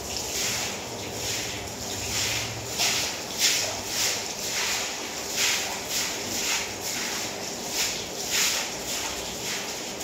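Stiff stick broom sweeping water across a wet stone floor: repeated short swishes, a little under two strokes a second.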